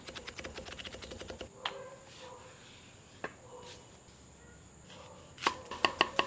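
Chef's knife cutting on a wooden chopping block: a quick run of light taps while slicing red bell pepper, then a few single knocks, and near the end several louder chops into a red onion.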